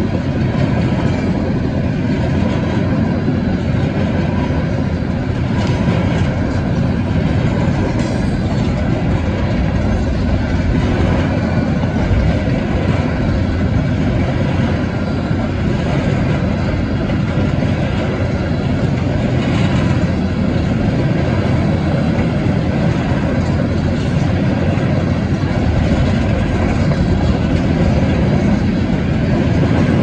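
Freight train of open-top hopper cars rolling past at a grade crossing: a steady rumble and clatter of steel wheels on the rails, with a few faint clicks.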